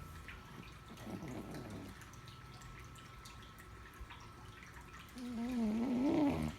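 Domestic cat snoring: a faint snore about a second in, then a loud, wavering, buzzy snore for over a second near the end that stops sharply.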